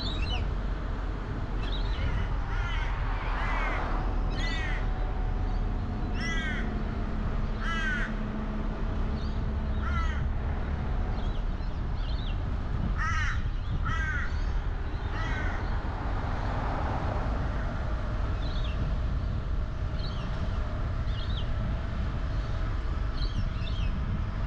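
Birds calling over and over, short harsh calls every second or two, over a steady low rumble of car and road noise.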